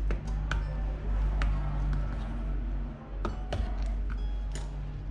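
Sharp plastic clicks and snaps, about eight scattered through a few seconds, as the clips of a Samsung Galaxy J7's plastic back cover are pried loose with a plastic pry tool. A steady low hum runs underneath.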